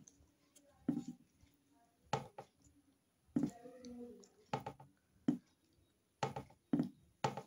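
Eating sounds of a hand-eaten meal of naan and chickpeas: a series of sharp clicks and knocks, about eight, roughly one a second, with faint mouth noises between.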